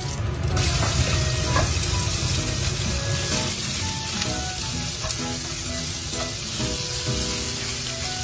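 Garlic and minced pork sizzling steadily in hot oil in a frying pan, stirred and spread with a silicone spatula.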